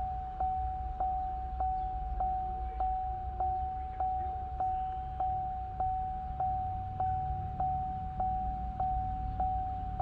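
Car warning chime dinging over and over on one pitch, about five dings every three seconds, each ding fading before the next. A low steady hum runs underneath.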